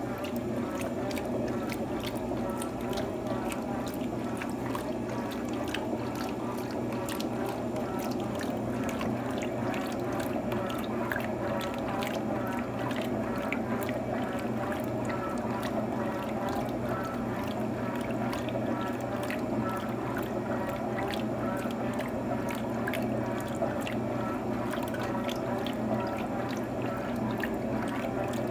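Electrolux TOP8A top-loading washing machine at work with water inside: a steady splashing and gurgling with many small drips over a low motor hum.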